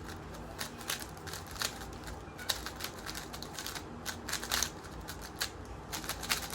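X-Man Tornado V3M 3x3 speed cube being turned fast during a solve: a quick, irregular run of light plastic clicks and clacks as the layers snap round.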